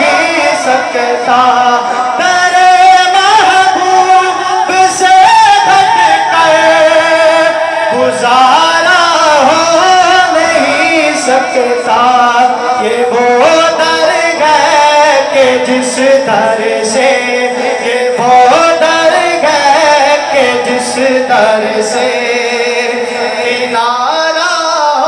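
A man singing an Urdu naat solo into a handheld microphone over a PA, in long wavering held notes with no pause.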